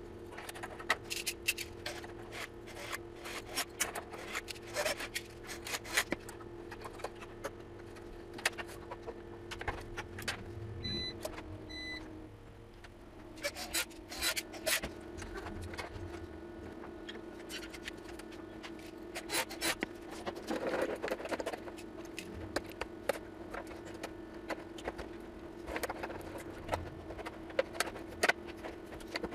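Small clicks, scrapes and rattles of hardware being handled, all through, over a steady hum. Two short high beeps come about a second apart, near the middle.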